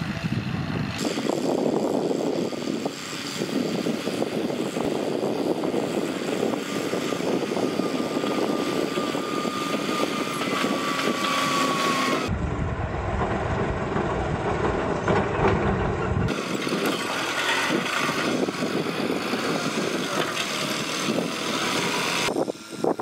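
John Deere tractor's diesel engine running steadily under load while pulling a disc plough through dry soil. The sound changes abruptly several times, with a heavier low rumble for a few seconds in the middle.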